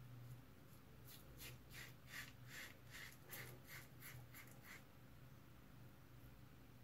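Merkur 34C double-edge safety razor with an Astra SP blade scraping through lathered stubble on the cheek on the first pass: a faint run of about ten short strokes, two or three a second, from about a second in until nearly five seconds.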